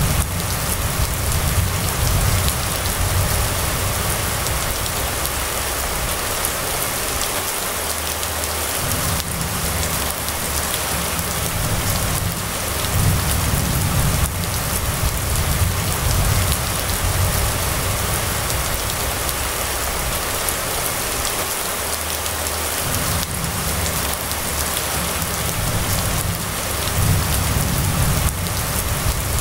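Steady rain falling on a wet street: a dense, even hiss. Under it runs a low rumble that comes and goes, fading out briefly twice.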